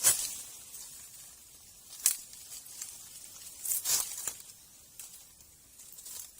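A few brief rustling, scraping swishes with pauses between, like hands working dry plant material or earth.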